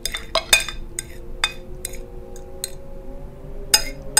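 Cutlery clinking against a plate: a string of irregular light clinks over a faint, steady low hum.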